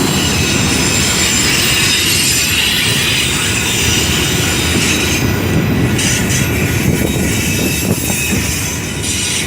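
Union Pacific train rolling past close by: a loud, steady rumble of cars on the rails, with a high wheel squeal riding over it for the first half.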